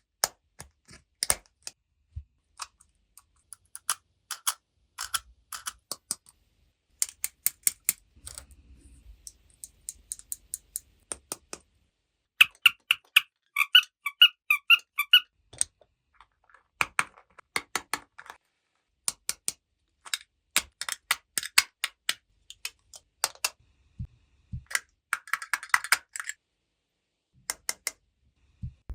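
Small plastic toy pieces clicking and tapping as they are handled, in irregular clusters of light clicks. A run of short, high-pitched chirping pulses comes about halfway through.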